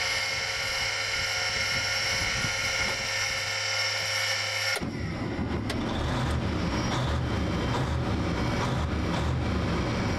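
A motor running with a steady whine, changing abruptly about five seconds in to a rougher, rumbling machine noise.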